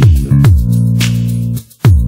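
Electronic background music with a deep kick drum that falls in pitch and sharp clap-like hits over sustained chords. The music drops out for a moment near the end, then comes back.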